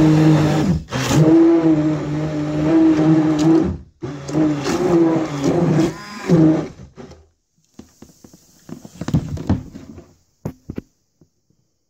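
Braun stick blender running in a shallow tub of water and soaked egg-carton pieces, pulping them into papier-mâché pulp, with churning and splattering because the water is too shallow. It runs in three spells with two short breaks, then stops about seven seconds in, leaving faint small splashes.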